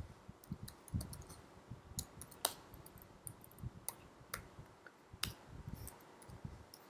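Faint, irregular clicking of computer keyboard keys being typed on, with a few sharper clicks among softer key presses.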